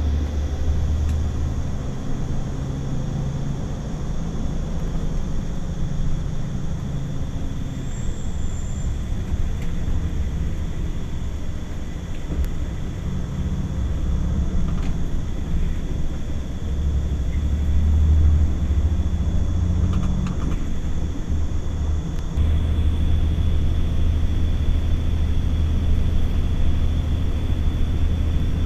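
Steady low rumble of a running engine, its pitch shifting a little now and then.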